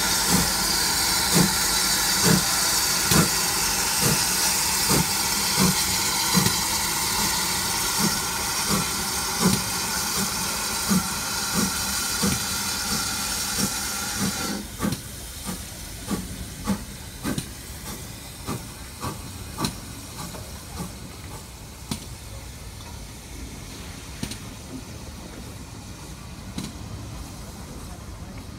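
GWR steam tank locomotive setting off, its exhaust chuffing slowly, a little over once a second, under a loud hiss of escaping steam. About halfway the hiss cuts off suddenly and the chuffs carry on more quietly.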